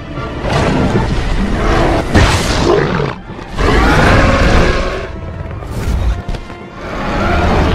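Animated-film soundtrack: dramatic music with deep booms, and three loud swells of noise, a sharp hit about two seconds in.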